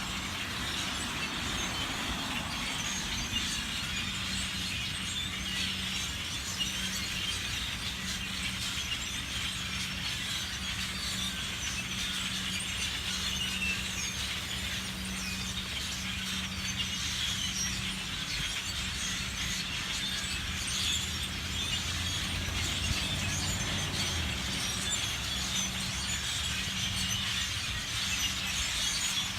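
A huge flock of birds calling all at once as they gather to roost in bamboo, a dense, unbroken chatter of many high chirps and squeals. A steady low hum runs underneath, with a low rumble swelling about twenty seconds in.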